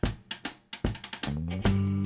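Intro jingle music: a run of sharp drum hits, then held pitched notes come in a little past the middle.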